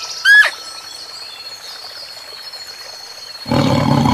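A short, loud call that falls in pitch, just after the start, over a steady outdoor hiss with a thin high whine. About three and a half seconds in, a loud, deep animal roar begins.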